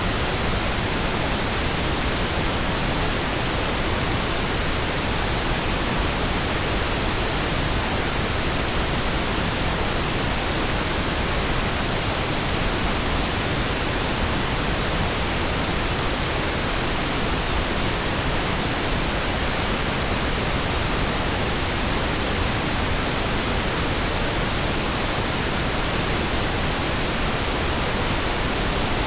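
Steady synthesized pink noise: an even, unchanging hiss with no tones or breaks.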